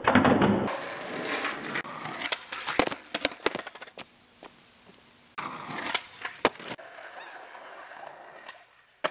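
Skateboard on pavement: wheels rolling with a hiss, and the board clacking and slapping down in a series of sharp knocks, with abrupt changes between short takes.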